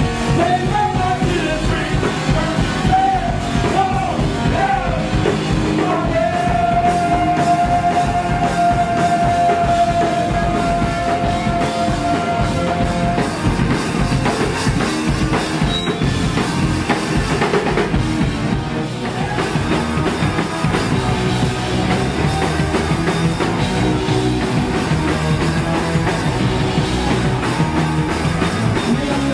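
Punk rock band playing live: drum kit and electric guitars with singing, the full band running loud throughout. One note is held steady for several seconds about a quarter of the way in.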